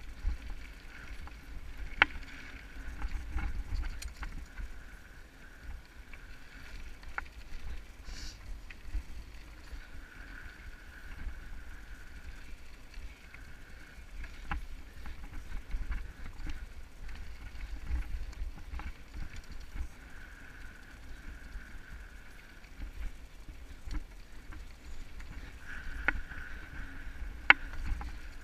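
Mountain bike ridden over a rocky dirt trail: a steady rumble of tyres on loose dirt and gravel, with sharp clicks and rattles from the bike jolting over rocks now and then.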